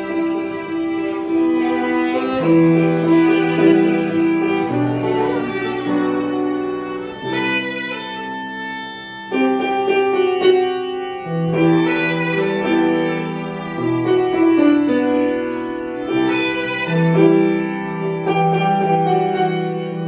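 Background music with slow, held notes that change every second or two.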